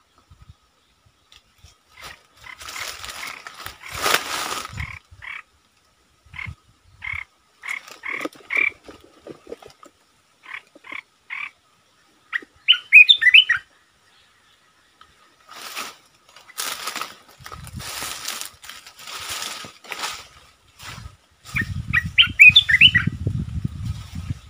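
Olive-winged bulbul calling in a string of short clear notes, breaking twice into a quick warbled phrase, about halfway through and near the end. Bursts of hissing noise come and go between the calls, and a low rumble sets in near the end.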